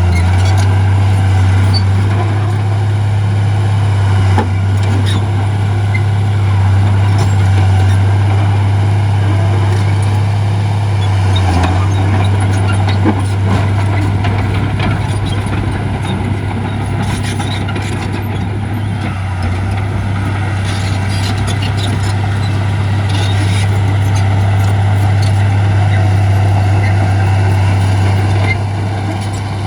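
Heavy diesel earthmoving machinery running steadily under load, with a low, even engine drone and a few short clanks.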